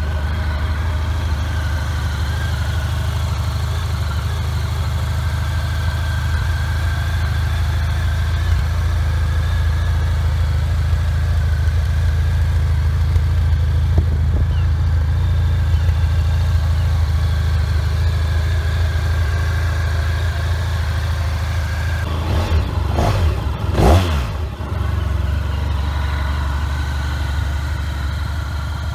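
Honda VFR1200X Crosstourer's 1237 cc V4 engine idling steadily, with the revs rising and falling briefly about 23 seconds in.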